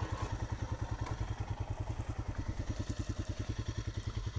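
2018 Royal Enfield Himalayan's single-cylinder engine idling, with an even, fast chug of roughly ten beats a second.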